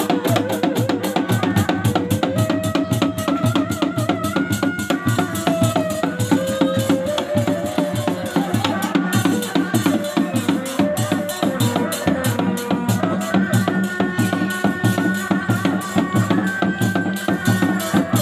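Reak ensemble of Sundanese dog-dog drums of several sizes beaten in a fast, steady interlocking rhythm, with a high stepping reed melody from a tarompet (Sundanese shawm) above it.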